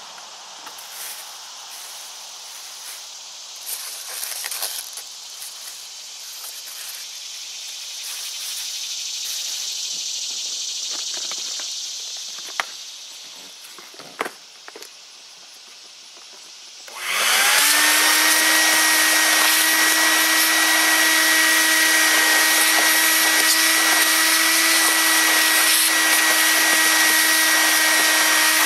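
A few quiet handling clicks and rustles, then about two-thirds of the way through a small shop vac is switched on. Its motor spins up within a second and runs on with a loud, steady whine as it vacuums styrofoam crumbs out of a drilled hole.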